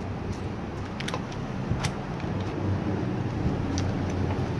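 An AW HX2002 airsoft pistol with a tactical light being pushed into a fabric drop-leg holster: several light clicks and knocks of plastic against nylon and buckles. Under it runs a steady low engine-like rumble that grows a little louder after the middle.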